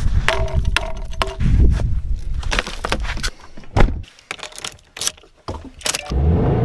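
Keys rattling and a series of sharp clicks as a key is fitted into a car's ignition switch and turned. About six seconds in the engine cranks, starts and settles into a steady run.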